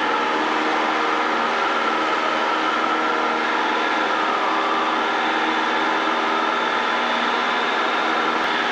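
Cessna 152's four-cylinder Lycoming engine and propeller running at full power for takeoff, a steady, unchanging drone with a set of even tones.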